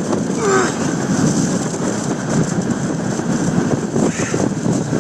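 Typhoon-force wind hitting the phone's microphone: loud, continuous, rumbling wind noise.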